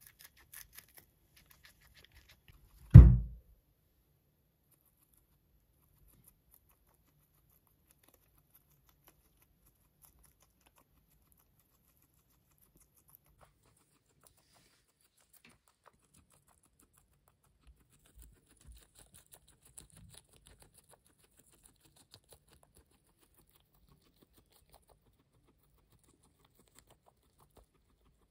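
A single heavy thump about three seconds in, then long quiet with a few faint crunching ticks later on: a guinea pig chewing lettuce.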